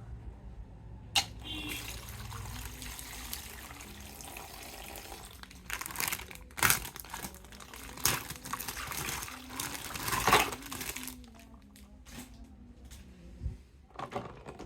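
Crinkling and rustling of plastic packaging as a toy action figure is unwrapped, with several sharper, louder crackles in the middle, then quieter handling.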